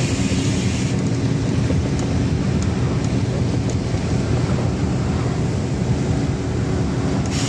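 Cabin noise of a LiAZ-5292.21 low-floor city bus under way: a steady rumble of its diesel engine and road noise, with a brief louder hiss at the start.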